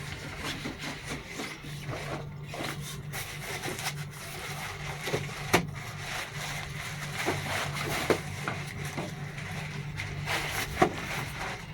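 Plastic parts of a split air conditioner's indoor unit being handled and fitted back into place: irregular rubbing and scraping with scattered clicks and knocks, one sharp click about five and a half seconds in and another near the end. A low steady hum runs underneath.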